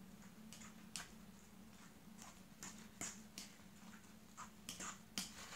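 A metal fork stirring mashed potato in an enamel bowl: faint, irregular clicks and scrapes as the fork knocks against the bowl's sides.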